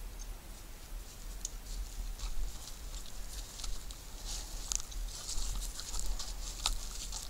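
Rustling and crackling with many scattered light clicks, growing denser from about four seconds in, over a low steady rumble.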